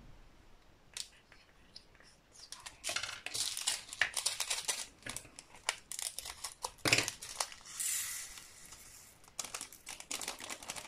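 Small plastic bags of diamond-painting drills being handled and crinkled, in several bursts of crackling with a short rustle about three quarters of the way through.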